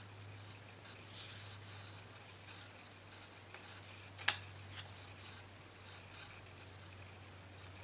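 Pencil scratching on paper and wood as it traces around a template, with one sharp tap about four seconds in, over a steady low hum.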